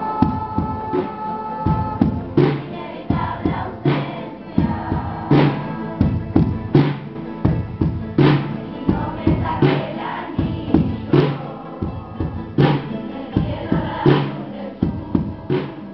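A children's school choir singing a song in chorus, accompanied by strummed acoustic guitars. The strumming keeps a strong, regular beat.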